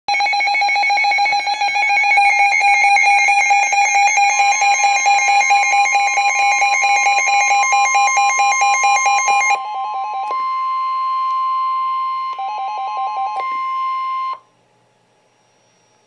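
Several NOAA weather radios, among them a Midland WR-120, sounding their warning alarms together: loud, rapidly repeating electronic beeps, with a steady high NOAA Weather Radio warning tone joining about four seconds in. The beeping stops about ten seconds in, and the remaining tones cut off together about fourteen seconds in. This is the radios being set off by a severe thunderstorm warning.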